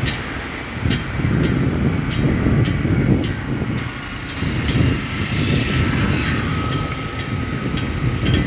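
Loud, uneven low outdoor rumble that swells and dips, with a few faint clicks through it.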